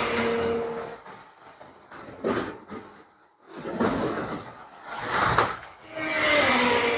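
BRM 1/24 scale NSU TT slot car lapping the track and sweeping past several times. Each pass is a rush of tyre and guide noise with a small electric motor whine that dips slightly in pitch, and there are short lulls between passes.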